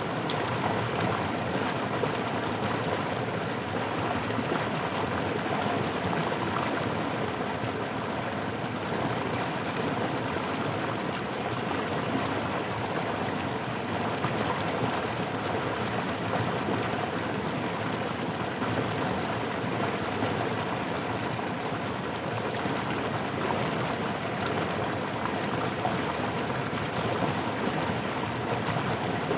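Floodwater rushing steadily through a field channel where fish nets are set.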